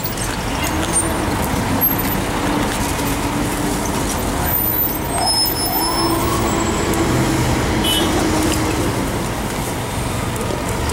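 1999 Orion V transit bus engine running as the bus pulls slowly through the intersection, a steady drone over street traffic noise, with a whine rising about five seconds in.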